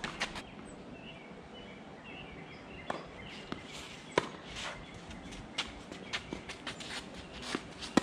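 Tennis rally: sharp pops of racket strings striking the ball and the ball bouncing, about a dozen in all, the loudest about four seconds in, with shoe scuffs on the court. Faint bird chirps in the background early on.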